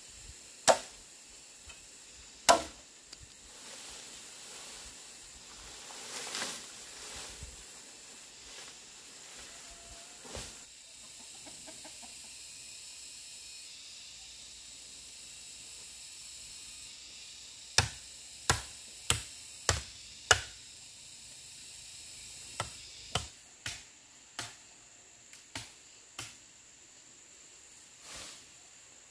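Sharp chopping strikes of a tool on wood. There are two in the first few seconds, then a run of five about two-thirds of a second apart, then six more spaced more loosely.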